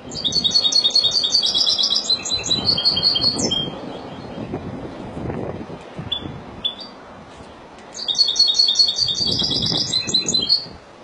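Caged European goldfinch of the Spanish Málaga singing type singing two long bursts of fast, high twittering song, each about three seconds, with a couple of short calls in the pause between them.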